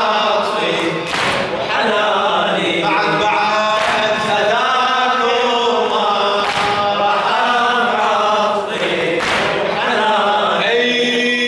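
A male radood chanting an Arabic Shia elegy (latmiya) into a microphone: a sung lament with long, wavering held notes. A few sharp thuds cut across the singing.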